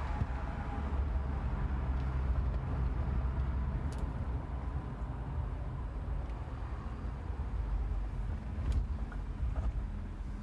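Steady low rumble of a Ford F-350 pickup driving, heard from inside the cab, with a couple of faint clicks.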